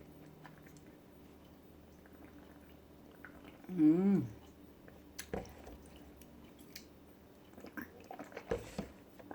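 A person eating close to the microphone, with soft chewing and mouth smacks and clicks. About four seconds in comes a short wavering hummed "mmm", the loudest sound.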